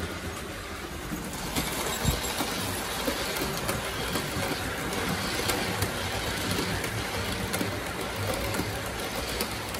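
Hornby OO gauge model train running past on the layout's track: the coach wheels rattle and click steadily over the rail joints. It grows louder about a second in as the train nears.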